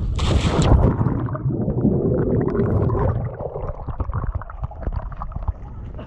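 A rider splashing down into lake water from a drop slide: a short loud splash at the start, then water churning and gurgling around the body-worn camera, turning muffled after a second or so and slowly settling.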